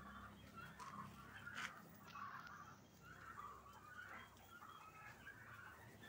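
Faint domestic fowl calls, short and repeated at irregular intervals, over a low steady hum. One brief tick about one and a half seconds in.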